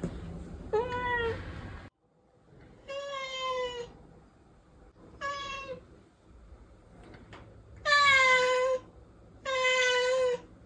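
Tabby house cat meowing five times, each meow under a second long with short pauses between, the last two loudest and longest.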